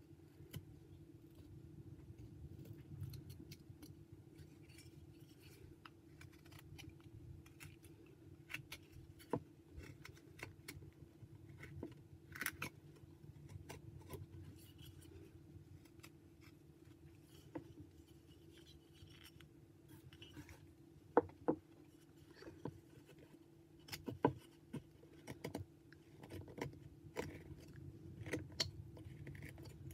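Carving knife whittling white pine: short, irregular slicing and scraping strokes, with a few sharper snaps of a cut past the middle, over a faint steady low hum.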